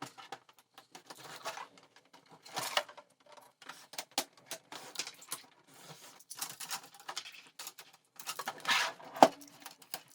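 Blue protective shipping tape being peeled off a new Epson ET-2820 inkjet printer: irregular rustling, scraping and small plastic clicks as the casing and parts are handled, with one sharp click near the end.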